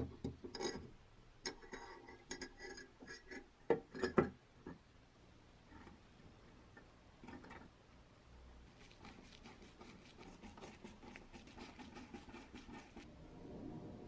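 Metal hopper of a coffee grinder clinking and knocking as it is seated in the wooden top, a cluster of sharp clicks over the first four seconds or so. About nine seconds in comes a run of fast light ticks and scratches lasting some four seconds, as small brass screws are fitted to fasten the collar ring.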